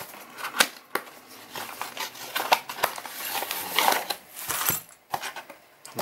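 Cardboard product box being opened and its packaging handled: irregular sharp clicks and taps mixed with rustling as the contents are taken out and set down.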